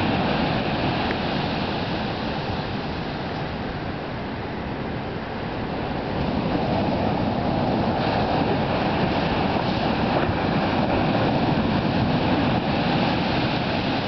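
Ocean surf breaking and washing up a beach, a steady rush of noise that eases a little a few seconds in and builds again about six seconds in.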